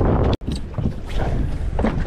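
Wind buffeting the microphone aboard a fishing boat at sea: a steady low rumble with a few faint knocks. The sound cuts out for an instant about half a second in.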